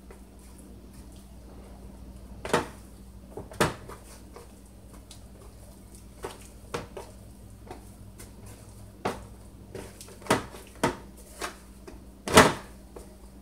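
A metal sheet pan knocking and clanking as raw beef short ribs are tossed and pressed in flour on it by hand: about nine irregular knocks, the loudest a little before the end.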